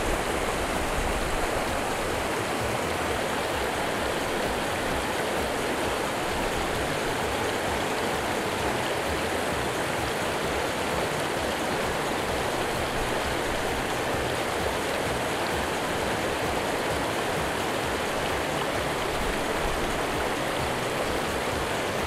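Mountain stream flowing, a steady even rush of water.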